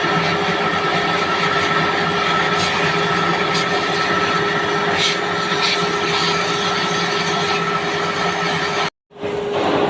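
Steady industrial machinery noise from a furnace plant, with a constant whine running through it. It cuts out completely for a moment near the end, then returns.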